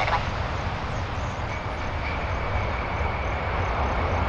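Boeing 747 jumbo jet rolling out on the runway just after touchdown: a steady rumble of engine and runway noise. A faint, steady high whine comes in about a second and a half in.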